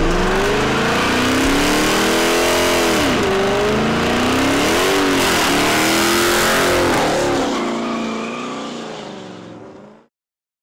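Dodge Challenger doing a burnout: the engine revs up and down again and again while the rear tyres spin against the asphalt. The sound fades near the end and then cuts off.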